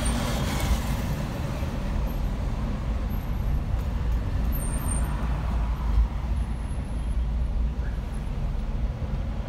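Steady low rumble of a car's engine and road noise heard from inside the cabin while creeping in slow traffic, with a brief hiss in the first second.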